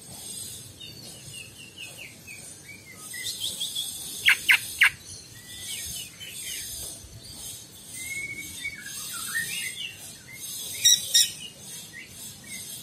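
Green leafbird (cucak ijo) singing, a rapid run of varied chirps and short warbled phrases. Louder sharp notes cut in: three a little after four seconds, and another cluster about eleven seconds in.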